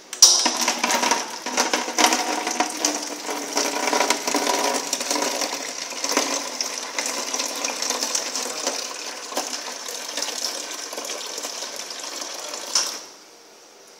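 A gravity-fed oil vending machine pouring a thin stream of oil into a plastic jar. The pour starts suddenly, grows gradually quieter and cuts off shortly before the end as the dispense finishes.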